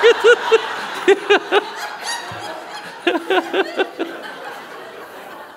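Laughter: three bursts of quick 'ha-ha' pulses, about five a second, dying away over the last couple of seconds.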